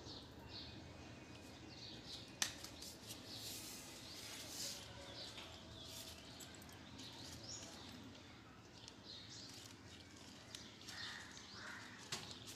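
Fingers working through short hair with faint rustling and small clicks of fingernails pinching out nits. One sharper click comes about two and a half seconds in and another near the end.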